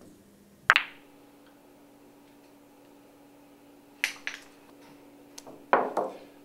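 Pool balls clicking against one another on the table during a bank shot: one sharp click about three-quarters of a second in, two quick clicks around four seconds in, then a heavier knock near the end.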